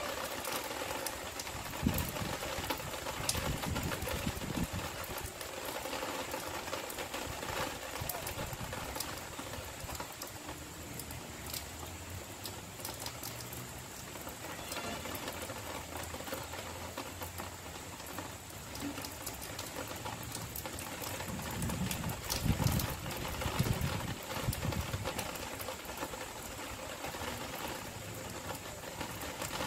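Light rain tapering off: a steady soft hiss with scattered drips and taps. A few low rumbles come and go, the loudest a little over twenty seconds in.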